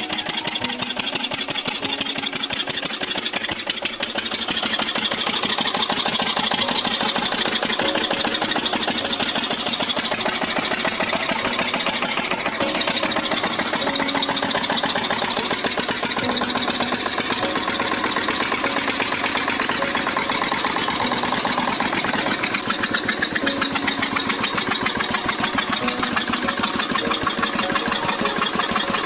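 Small single-cylinder diesel water-pump engine sound, running steadily at idle with a fast, even clatter.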